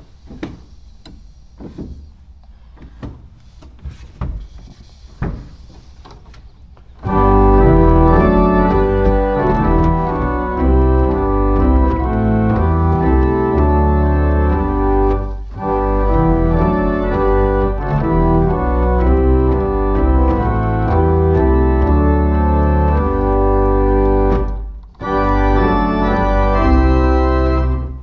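1871 Walker pipe organ: a few clicks and knocks at the console as the stops are set, then about seven seconds in the organ starts a hymn in full sustained chords on the great, with two short breaks between phrases.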